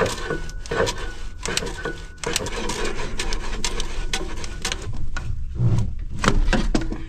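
Exhaust stack of a Massey Ferguson 6480 tractor being wiggled and worked loose by hand, a rapid run of metal knocks, clanks and scraping as the pipe shifts in its joint.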